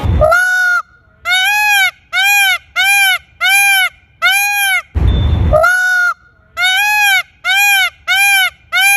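Indian peacock calling in a rapid series of loud, short, nasal honks, each one rising and then falling in pitch, about eleven in nine seconds. A brief low rumble cuts in a little over halfway through.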